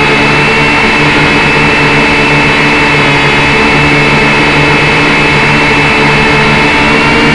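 Syma X5C quadcopter's small motors and propellers whining steadily while it hovers, heard loud and close through the drone's own onboard camera microphone.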